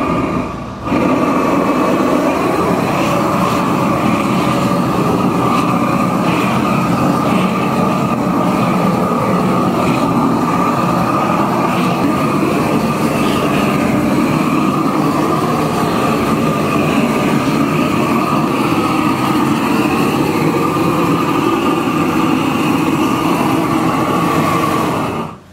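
Long-handled gas torch burning steadily with a loud rushing flame as it heats a bronze cymbal for annealing. The sound stops abruptly near the end.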